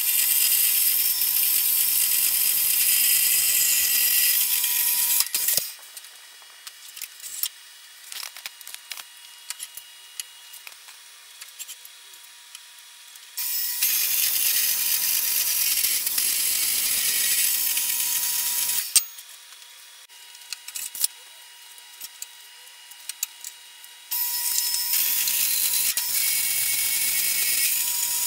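Horizontal metal-cutting bandsaw cutting square steel tubing: three stretches of a loud, high hiss of blade on steel, each several seconds long. Between the cuts come clicks and clanks of the tubing being handled.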